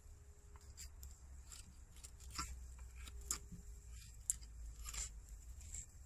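Mocotaugan (curved crooked knife) shaving strips of bark and wood off a dry stick. A string of short, faint scrapes comes roughly once a second, one per carving stroke.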